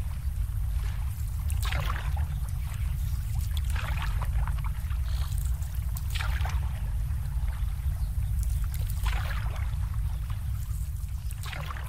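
Water sloshing in surges about every two to three seconds over a steady low rumble.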